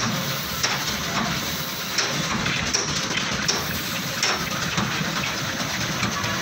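Compressed-air paint spray gun hissing steadily as it sprays paint, with a sharp click repeating about every three quarters of a second.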